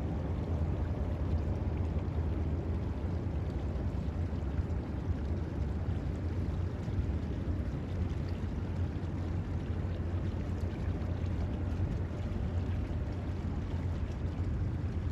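A boat under way: a steady low engine rumble with the rush of water alongside.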